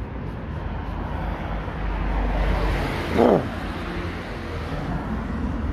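A car passes close by on the road, its tyre and engine noise swelling and then dropping sharply in pitch as it goes past about three seconds in, over a steady low wind rumble on the microphone.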